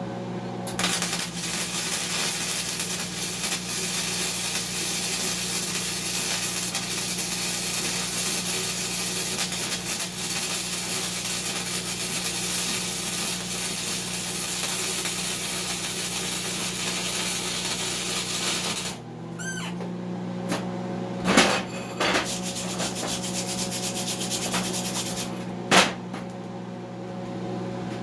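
MIG welding arc crackling and hissing steadily for about eighteen seconds as a bead is laid on heavy steel plate, over a steady electrical hum, then cutting off. Two sharp knocks follow a few seconds apart.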